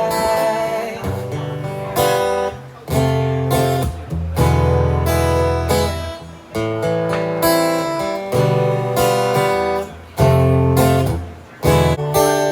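Acoustic guitar strummed in full chords, each struck chord ringing and fading before the next, about one every one to two seconds, with no singing.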